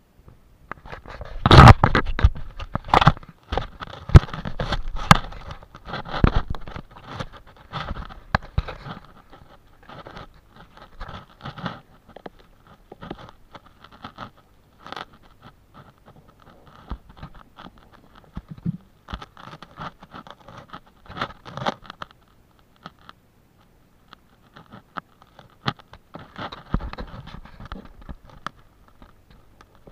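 Close rustling, scraping and crackling of leaf litter and soil as hands and a knife work at the ground around a wild mushroom. It comes in irregular bursts, densest and loudest in the first several seconds, then sparser, with another stretch of scraping near the end.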